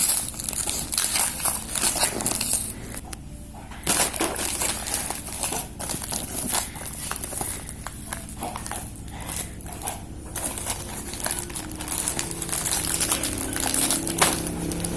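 Packaging being handled and unwrapped: crinkling and rustling with irregular small clicks and knocks.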